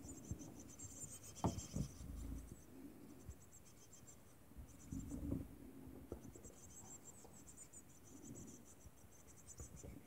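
Songbird nestlings in the nest giving faint, rapid, very high-pitched cheeping calls in short runs, with soft scratchy rustling in the moss nest material and a few light knocks as they shift about.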